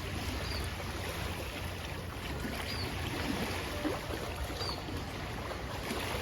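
Lakeshore ambience: steady wind and water noise, with a small bird chirping about every two seconds.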